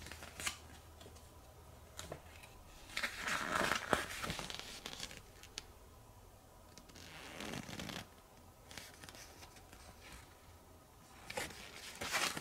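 Pages of a paper instruction booklet being turned and handled, rustling in irregular bursts; the longest and loudest comes about three to five seconds in, with another near the end.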